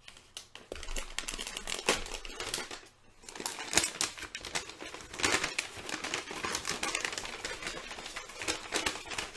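Paper takeout bag crinkling and rustling as it is handled and opened, a dense crackle that stops briefly about three seconds in.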